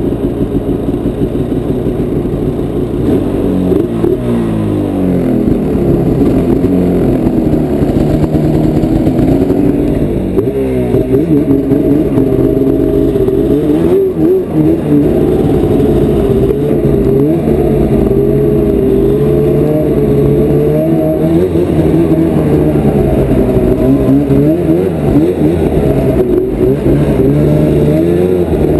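2010 Arctic Cat Crossfire 800 snowmobile's two-stroke twin engine running as the sled is ridden over grass, revving up and falling back again several times.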